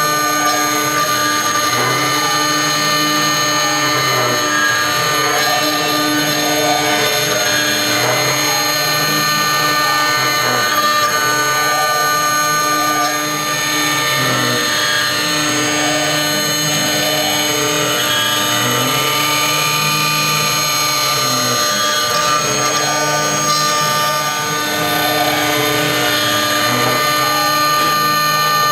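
6090 CNC router spindle carving a coin medal with a fine bit: a steady machine whine, with lower tones that rise and fall every few seconds as the machine moves through the cut.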